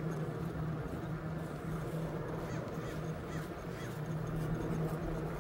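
Steady outdoor background noise with a low hum, and a few short, faint bird calls.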